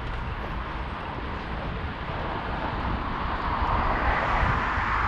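Wind rushing over the microphone and the rumble of riding along a city street, growing gradually louder over the last couple of seconds.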